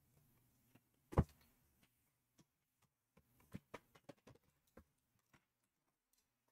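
Handling of trading-card boxes and packs: one soft thump about a second in, then a run of small clicks and taps.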